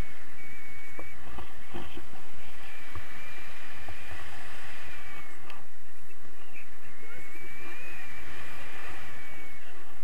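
Wind rushing over an action camera's microphone in paraglider flight, a steady low rumble. A thin high whistle comes and goes several times over it.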